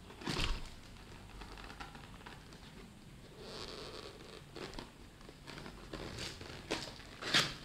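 Paperboard lens box being handled and opened by hand against bubble wrap: rustling and crinkling with scattered scrapes and flap snaps. The sharpest is about a third of a second in, and the loudest comes near the end.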